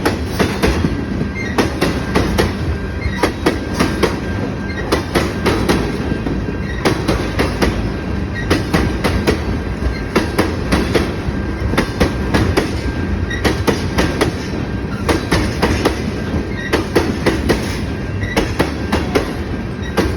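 Freight train of box cars and tank cars rolling past, the wheels clicking over rail joints in repeated clusters over a steady rumble, with a faint thin wheel squeal.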